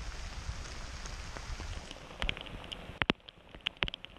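Heavy rain falling on a lake's surface, a steady hiss. From about two seconds in, several sharp taps of drops strike close by.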